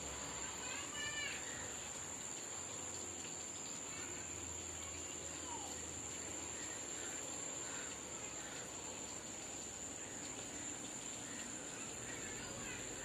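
Steady high-pitched insect drone, cricket-like, with occasional bird chirps and calls over it.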